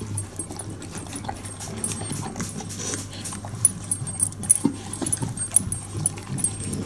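Labradoodle eating from a metal dog bowl: quick chewing and lapping, with sharp clicks of teeth and collar against the bowl that get louder in the second half.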